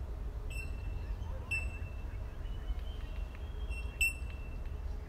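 Short high-pitched pings or beeps, roughly one a second, the loudest about four seconds in, over a steady low rumble.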